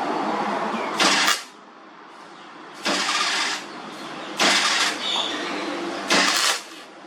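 Gasless (flux-core) MIG welder arc in four short bursts, each about half a second, like a run of tack welds.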